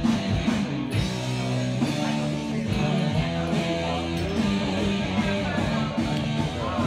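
Rock music with guitar playing.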